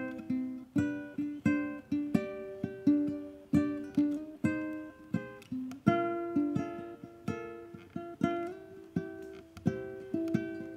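Solo ukulele playing an instrumental piece: a quick run of plucked single notes and chords, each ringing out and fading.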